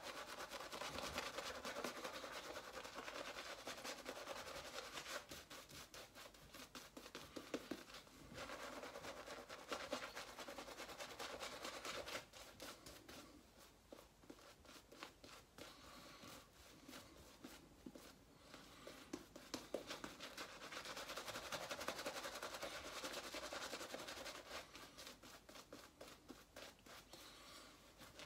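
Shaving brush working lather over a stubbled face: a fast run of brushing, rubbing strokes, quieter for several seconds midway and picking up again after.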